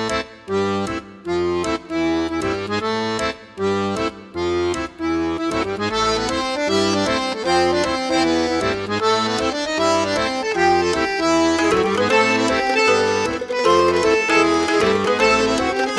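Background music: an upbeat, folk-style tune led by accordion over a steady bass beat, growing fuller about six seconds in.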